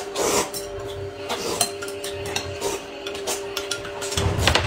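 Noodles being slurped up in several loud sucks, with a metal spoon clinking against a glass bowl in between.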